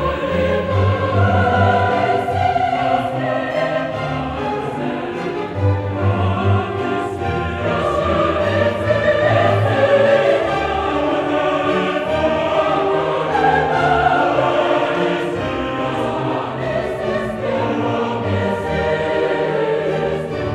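Background music: a choir singing long held notes with orchestral accompaniment.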